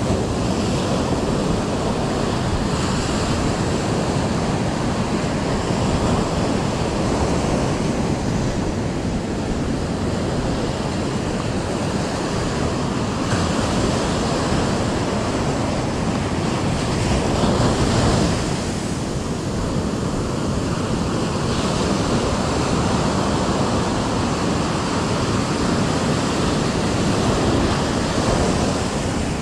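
Surf breaking and washing up a sandy beach, swelling and easing every few seconds, with wind buffeting the microphone.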